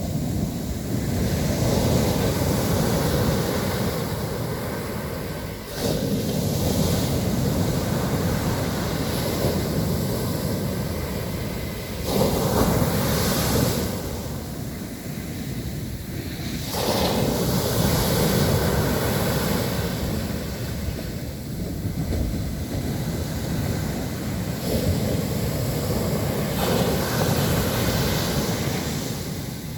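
Ocean surf breaking on a beach: a continuous rush of waves, with a fresh surge of breaking water every five seconds or so.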